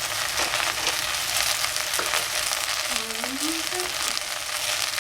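Food sizzling steadily in a hot frying pan while a spatula stirs it, with short clicks and scrapes against the pan.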